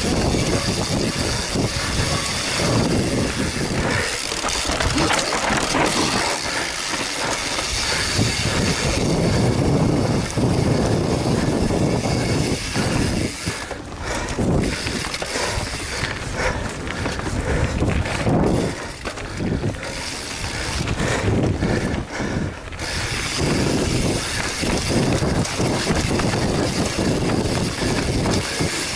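Mountain bike descending a rough dirt trail: a continuous rush of wind over the microphone, with tyres running over dirt and leaves and the bike rattling over bumps.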